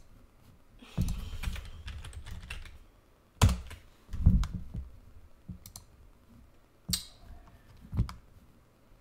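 Computer keyboard typing and clicking in scattered strokes, with a few louder sharp clacks and knocks among quieter taps.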